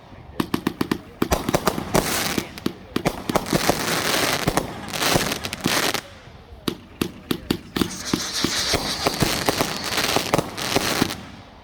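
Fireworks going off: rapid strings of sharp bangs and crackling pops, overlapping into dense stretches of crackle.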